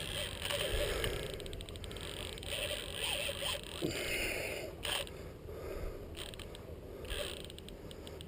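Fishing reel's drag clicking in several spells of rapid, even ticks as a hooked Mekong catfish pulls line off against it, with a few brief knocks between.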